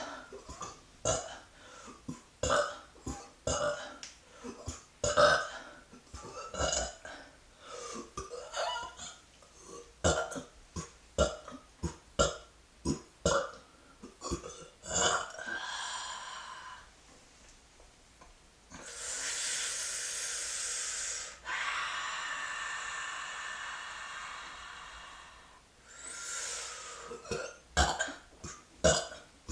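A woman burping over and over: a run of short belches, roughly one or two a second, then several long breathy rushes of air lasting a few seconds each past the middle, then more short burps near the end.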